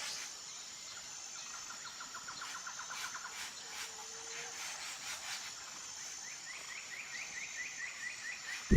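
Faint outdoor background with small birds chirping in rapid trills: one run of quick notes about a second and a half in, and a higher, slower run from about six seconds.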